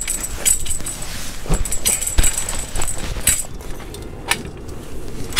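Metal pole of a Nordisk Asgard canvas bell tent knocking and clinking as it is handled and worked inside the tent, with several sharp knocks and canvas rustling between them.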